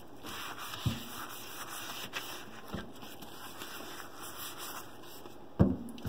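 Tupperware MicroPro Grill's plastic pan handled and turned over a stainless steel sink: a few knocks with a short low ring, about a second in, near three seconds, and loudest near the end, over a faint steady hiss.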